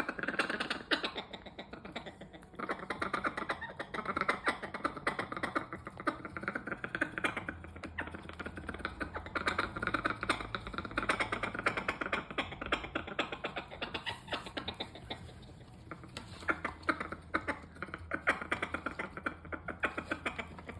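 Parrot making a long run of rapid clicking and popping noises, beatbox-like, in bursts with brief pauses.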